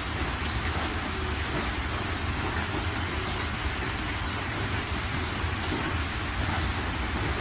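Water pouring through a dam's open spillway gates and churning in the channel below: a steady, even rush of noise with a low rumble.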